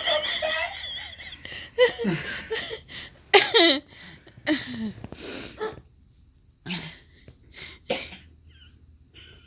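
A person laughing hard and breaking into coughs and wheezy gasps, in a string of short loud bursts that thin out to a few fainter breaths after about six seconds.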